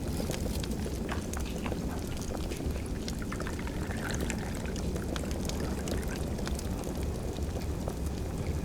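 Wood fire crackling, many sharp pops over a steady low rumble, with liquid being poured in the middle.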